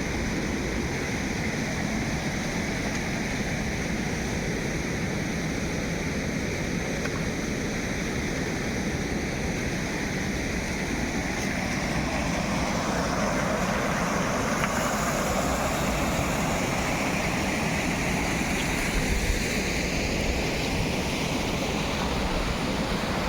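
Steady rushing noise with no distinct strokes or tones, slightly fuller in the middle stretch.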